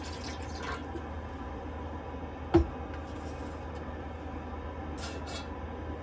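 Cooking things being handled on a small counter: a single sharp knock about two and a half seconds in and a brief rustle near the end, over a steady low hum.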